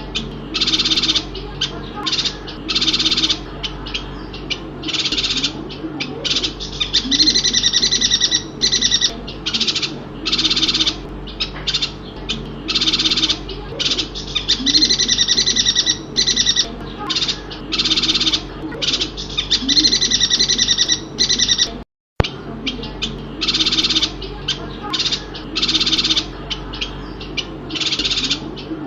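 Chestnut-crested yuhina (Bornean yuhina) calling: high, rapid twittering bursts repeated every second or so. The sound cuts out completely for a moment about 22 seconds in.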